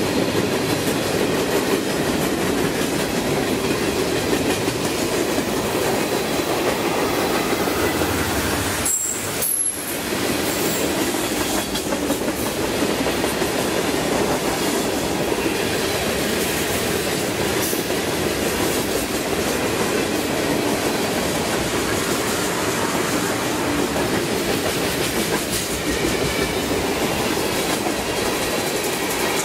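CN freight train of gondolas and tank cars rolling past, a steady, continuous noise of steel wheels on rail, with a short drop in level about nine seconds in.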